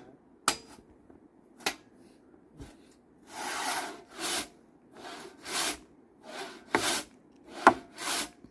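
A Nepalese hand saw cutting through freshly felled green timber. A few sharp knocks come first, then about three seconds in a steady rhythm of push-and-pull saw strokes starts, roughly one every two-thirds of a second.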